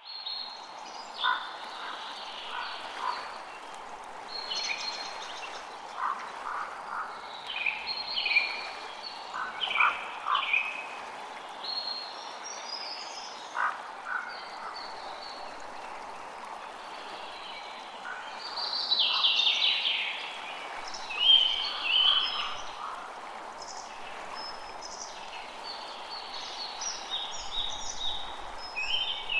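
Forest ambience: a steady background hiss under short chirping animal calls that repeat every second or two, busiest about two-thirds of the way through.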